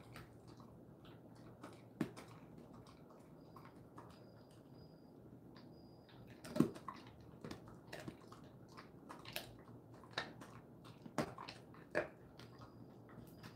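Jindo-mix dog chewing a dried elephant shark (chimaera) tail treat, with a few sharp crunches that come mostly in the second half.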